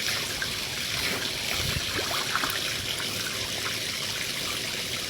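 Steady trickle of running water with a few small splashes.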